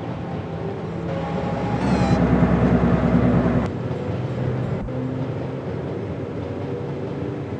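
Train running, a steady rumble and hum with several steady tones in it. About two seconds in it swells louder with a deep rumble, then drops back abruptly, with a short click a second later.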